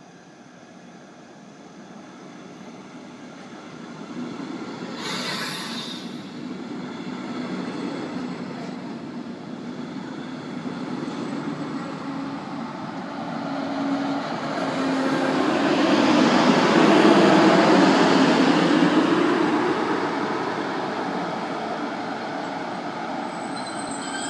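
Double-deck regional train propelled by a DB class 143 electric locomotive rolling in along the platform and slowing to a stop, its wheel and running noise growing louder to a peak about 16 to 19 seconds in as the locomotive passes, then easing off. A brief hiss about five seconds in.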